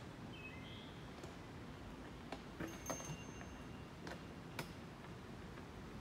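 Quiet woodland ambience: a soft low rumble with a few brief, high bird calls and scattered faint clicks.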